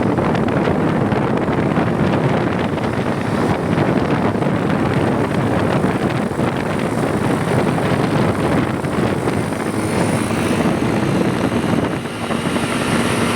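Steady, heavy rumble of wind and engine noise from a vehicle travelling at speed, with wind buffeting the microphone.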